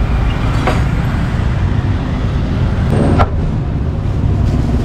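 Steady low rumble of road traffic passing close by, with two short sharp knocks, the louder one about three seconds in.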